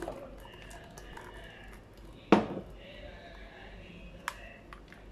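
Plastic spoon working grape-and-milk juice through a plastic sieve over a glass bowl: soft handling noise, one sharp knock about two seconds in, and a couple of lighter clicks near the end.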